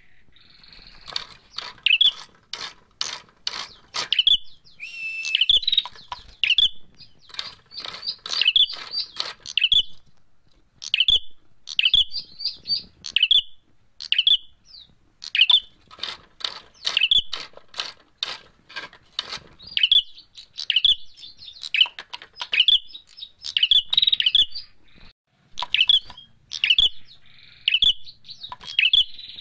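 Caged prenjak merah, a rufous-headed tailorbird, calling agitatedly in its fighting mode: rapid series of sharp, high chip notes repeated in bursts with short pauses between them.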